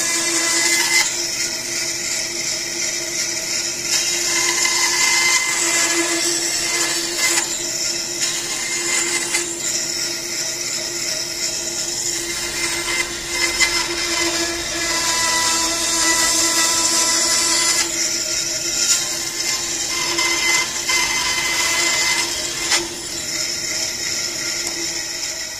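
Bandsaw running and cutting small blocks of soft wood: a steady motor hum under the hiss of the blade, which swells and fades as each block is fed through. Near the end the cutting stops and the sound dies down.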